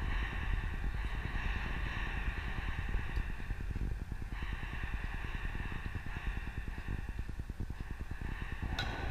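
Wind buffeting an outdoor microphone, a heavy fluttering rumble over a steady high hiss. One sharp ringing knock sounds near the end.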